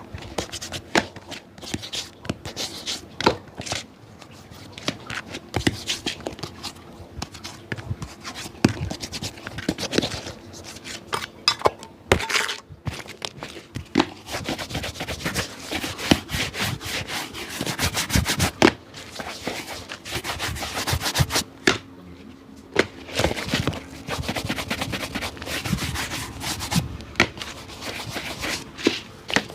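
Rapid, irregular rubbing and scratching strokes on a shoe as a cobbler works it over, with sharp clicks among the strokes.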